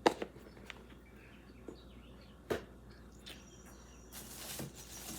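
Handling of small jewelry cases and packaging: a few light clicks and taps, one sharper click about two and a half seconds in, then rustling of packaging starting near the end.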